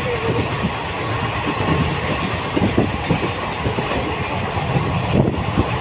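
A moving passenger train, heard from an open coach doorway: a steady rumble of the wheels running on the rails, with irregular clattering knocks throughout.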